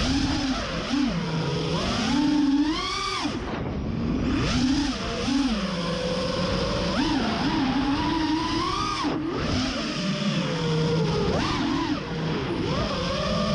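FPV freestyle quadcopter's brushless motors whining, the pitch rising and falling constantly as the throttle is worked.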